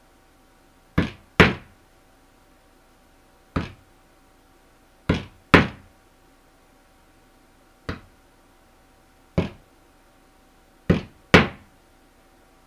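Claw hammer driving nails through the edge of a stretched beaver pelt into a wooden board, tacking the hide flat for drying. Nine sharp strikes a second or two apart, three of them in quick pairs.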